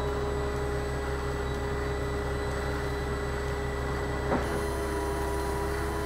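Concrete boom pump truck's diesel engine running with a steady drone, with a single short knock about four seconds in.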